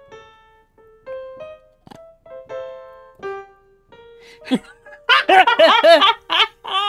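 Electronic keyboard with a piano sound, played one hesitant note at a time as if picking out a melody by ear. From about five seconds in, loud bursts of laughter take over.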